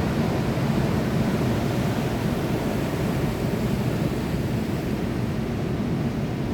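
Sea surf: a steady rushing noise with no distinct wave breaks standing out.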